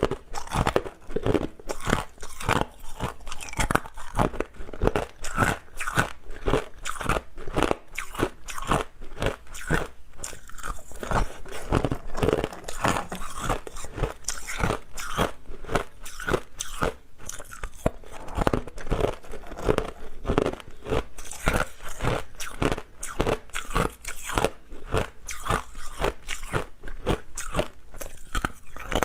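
Hard clear ice being bitten and chewed close to the microphone: a dense run of sharp, irregular crunches, several a second.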